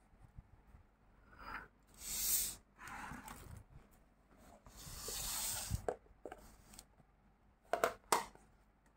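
A plastic tub being handled and opened: several short rubbing and scraping noises, one longer one about five seconds in, then two sharp plastic clicks near the end as the lid comes off.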